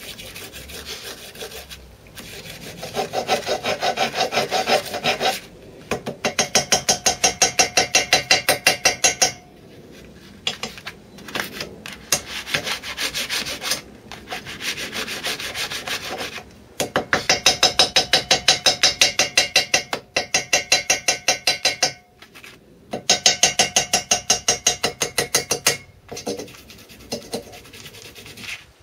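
Small ball-pein hammer tapping rapidly around the edge of gasket paper laid on the cylinder's metal flange, cutting out a cylinder gasket. The taps come in runs of a few seconds with short pauses between.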